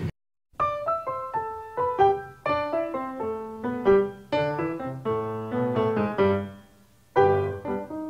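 Solo piano music: a gentle melody of struck notes and chords that each ring and fade. It starts about half a second in after a brief silence, dies away shortly before seven seconds, and a new phrase begins right after.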